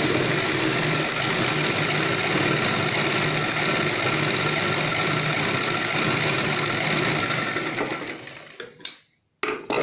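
A Chauhan sewing machine running steadily as it stitches a folded hem in cotton fabric, slowing and stopping about eight seconds in. A few sharp clicks follow near the end.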